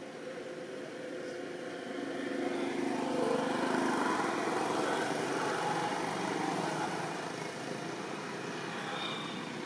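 A passing motor vehicle: steady engine noise that swells over a couple of seconds, is loudest mid-way, then slowly fades.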